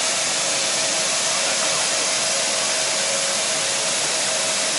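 Steady loud rushing hiss with a faint steady hum running under it, from air-handling machinery serving the parked Airbus A330 MRTT.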